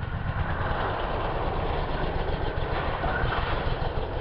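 Cagiva Elefant 900ie's Ducati 900SS air-cooled V-twin engine running as the bike is ridden across grass. The level stays fairly even, without a big rise in revs.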